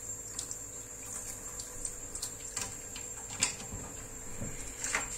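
Faint, scattered clicks and light scrapes of a knife working on fish, over a faint steady hum.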